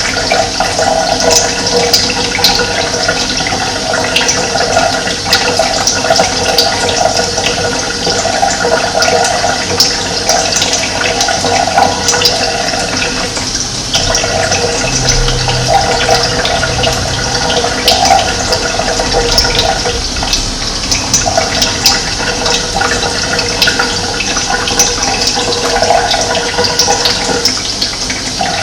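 Running water flowing in a steady rush.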